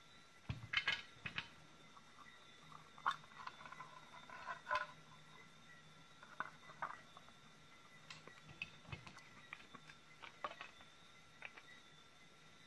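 Light plastic clicks, taps and rustling as the cell holder of a Makita 18 V lithium-ion battery pack is handled and turned over in the hands. The taps come in small clusters, the loudest about a second in and between about three and five seconds in, with scattered single clicks after.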